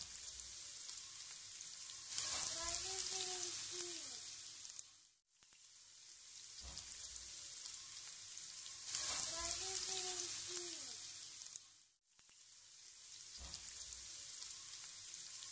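Diced bell peppers and onions sizzling as they fry in a non-stick pan while being stirred. The sizzle fades away and comes back twice, and is loudest at about two and nine seconds in.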